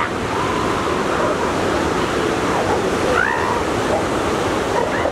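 Ocean surf washing steadily on a beach, with a faint short rising animal call about three seconds in.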